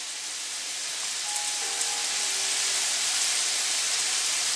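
Pieces of steak sizzling in a hot grill pan: a steady frying hiss that grows slightly louder over the first couple of seconds.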